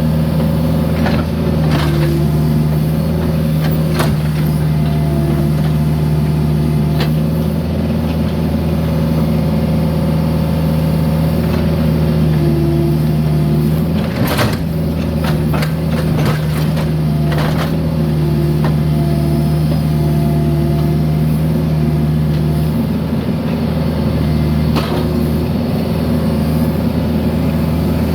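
Mini excavator's diesel engine running steadily under work, with scattered sharp clanks and knocks of the bucket and broken concrete, several close together about halfway through.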